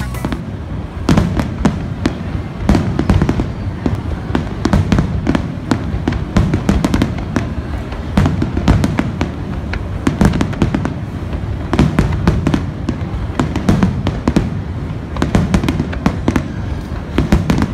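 Aerial firework shells bursting in quick succession: many sharp bangs and crackles, several a second, over continuous low booming from the bursts.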